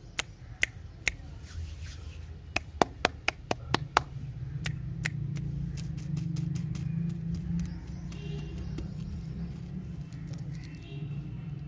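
Fingertips tapping on plastic-wrapped lollipops: a run of sharp, separate taps through the first few seconds, then softer handling as one lollipop is picked up. A steady low hum runs underneath from a few seconds in.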